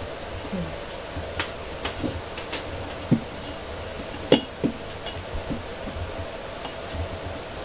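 Scattered light clicks and knocks of a phone being handled and set down on a table, the loudest about four seconds in, over a steady low hum.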